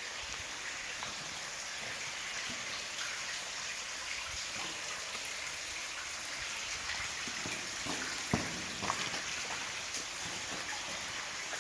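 Running water of a small stream: a steady rushing hiss, with a few sharp clicks or snaps about two-thirds of the way through.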